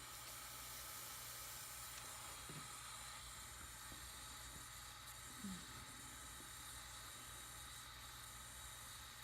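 Jeweler's soldering torch flame hissing softly and steadily while gold solder is worked on a ring joint, with a couple of small faint ticks.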